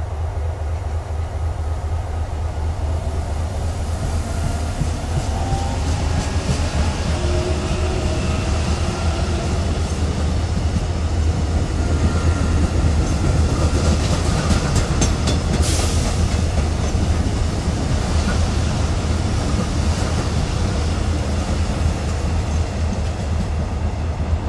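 Korail Line 1 electric commuter train pulling out of a station. Its motors give a whine that rises in pitch as it gathers speed, and its wheels click over rail joints as it passes about halfway through, over a steady low rumble.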